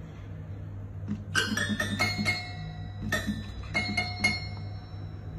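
Toy piano played by a cat pawing at its keys: scattered tinkling, chime-like single notes that ring on briefly, a group of about four a little over a second in and another group of about four around three to four seconds in.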